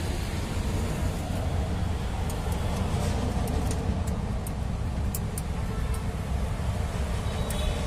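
Steady low rumble of road traffic, with a few faint clicks scattered through it.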